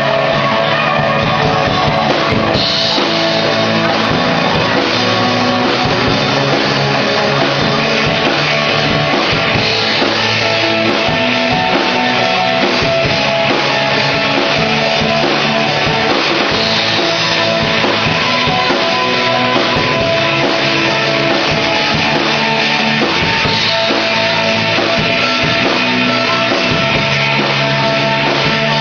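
Rock band playing live at a steady loud level, with guitar and drum kit.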